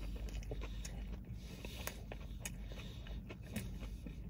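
A man chewing a mouthful of chicken sandwich with his mouth closed: faint, scattered soft clicks over a steady low rumble.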